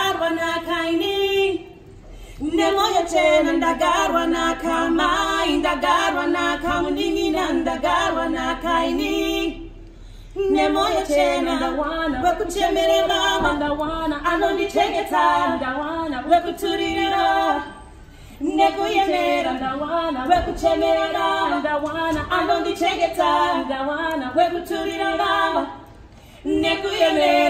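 Two women singing a cappella together, no instruments, in sung phrases of about eight seconds with a short breath between each.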